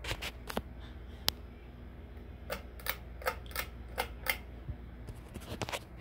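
SMC A52 ceiling fan motor running with a steady low hum, over which come a series of sharp clicks, including an even run of about three a second in the middle and a quick cluster near the end.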